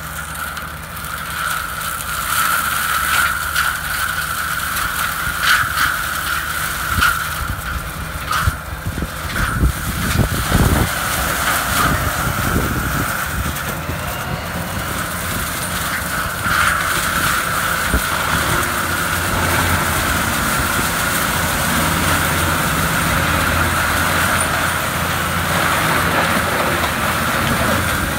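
Fendt 936 tractor's diesel engine running under load while it drives an FAE forestry mulcher shredding brush. The mulcher gives a steady high whine, broken by scattered cracks and knocks as the hammers hit branches, mostly in the first half or so.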